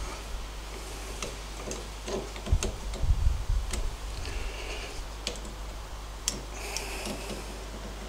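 Steel pliers clicking and scraping on the split pins and metal of a front disc-brake caliper as the pin ends are bent over, with a cluster of louder dull knocks about three seconds in and two brief squeaks. A steady low hum runs underneath.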